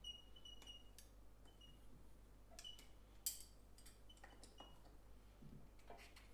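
Faint metallic clicks and ticks of water pump pliers working a rubber impeller out of the brass raw-water pump housing on a Vetus marine diesel, with one sharper click about three seconds in.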